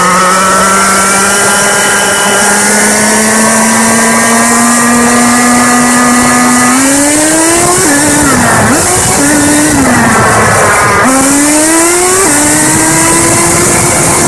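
Nitro RC car's small glow-fuel engine running at high revs. Its pitch climbs slowly for about seven seconds, then rises and falls sharply a few times as the throttle is worked, and holds high near the end.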